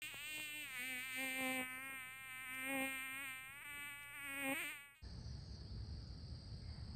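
A bee buzzing: one continuous buzz that wavers in pitch and rises near the end, cutting off suddenly about five seconds in. Then comes outdoor background noise with a low rumble and a steady high insect drone.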